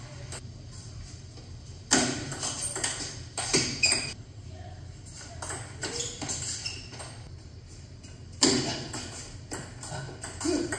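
Table tennis ball clicking off paddles and the table in rallies: a run of sharp hits about two seconds in, a quieter stretch, then more hits from about eight seconds in.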